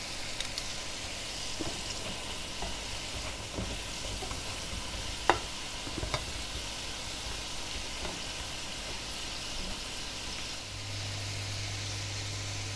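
Egg-and-flour-coated potato sticks sizzling in hot lard in a frying pan, late in the frying as they turn golden. Tongs knock against the pan a few times, most sharply about five and six seconds in, and a low steady hum comes in near the end.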